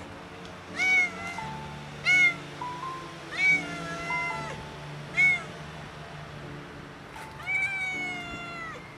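Ginger-and-white stray cat meowing five times, each meow rising then falling in pitch, the last one drawn out, over soft background music.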